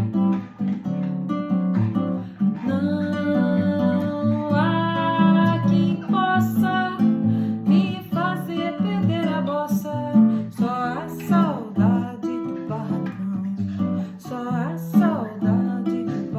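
Music: an acoustic guitar strummed and plucked, with a melody line above it that holds notes and bends in pitch.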